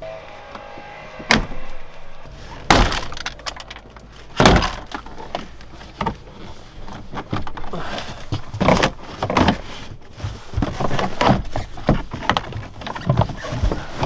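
Plastic interior door trim panel of a minivan being pried and wiggled off, cracking and knocking as its plastic retaining clips pop out. Three loud sharp cracks come in the first five seconds, followed by a run of shorter clicks and knocks.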